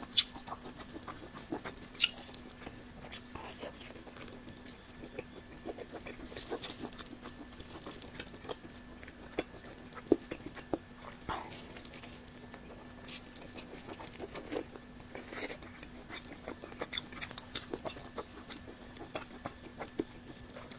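Close-miked mouth sounds of someone eating fatty cured pork: wet smacks, chewing and small clicks at irregular intervals.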